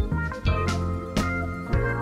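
Background music with a steady beat: sustained keyboard and guitar chords over drum hits about twice a second.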